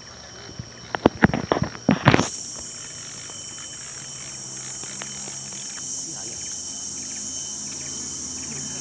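Insects in a steady high-pitched chorus that swells louder about two seconds in. Just before the swell comes a quick run of sharp clicks and knocks lasting about a second.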